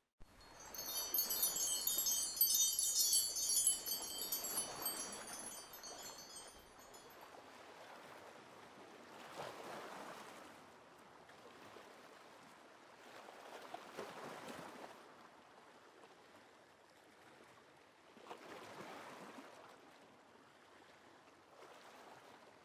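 A shimmering wind-chime glissando that fades out within the first several seconds, then soft ocean waves washing in and out, swelling about every four to five seconds.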